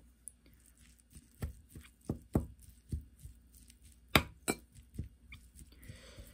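A spoon stirring fried rice in a ceramic bowl, knocking and scraping against the bowl in a series of irregular clicks.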